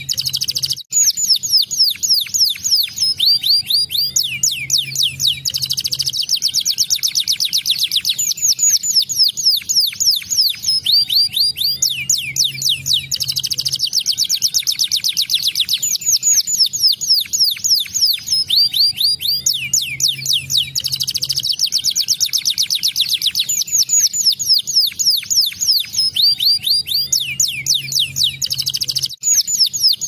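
Domestic canary singing a long, fast song: rolling trills of rapid falling whistles, phrase after phrase. Brief breaks come about a second in and near the end.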